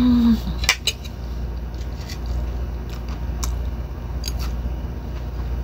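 A person eating crunchy fried tortillas with ground meat: a short falling 'mmm' hum at the start, then chewing with a few sharp clicks from a metal fork, over a steady low background hum.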